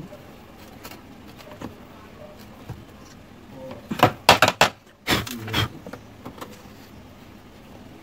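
Sharp clicks and knocks of a screwdriver working a rusted screw loose from a washing machine's plastic top panel, in a quick cluster about four seconds in and a few more a second later.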